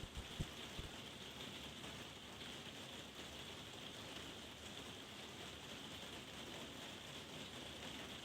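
Steady pouring rain, an even hiss, with a couple of faint knocks in the first second.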